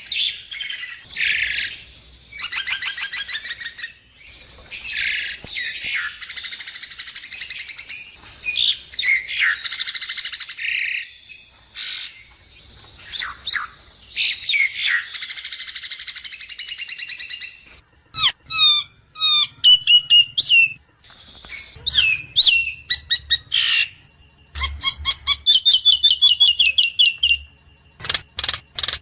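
Javan myna (jalak kebo) calling: long runs of harsh, raspy chatter and squawks, then, for the last third or so, a string of clear short whistles and quick trills.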